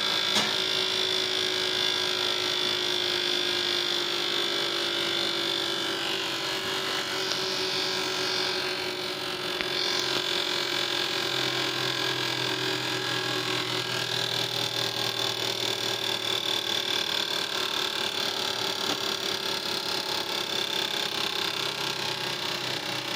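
Fuel injector test bench running the four direct-injection petrol injectors from an Alfa Romeo 2.0 JTS, pulsing them rapidly in a flow and spray test with a steady electric hum; the low part of the sound shifts about 11 and 14 seconds in. The test compares the injectors of an engine misfiring on cylinder 4, where one injector is judged to have been clogged.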